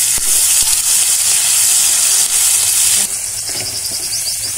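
Pounded green chilli and garlic paste sizzling hard in hot oil in a kadhai. It is a loud, steady hiss that drops abruptly to a quieter sizzle about three seconds in.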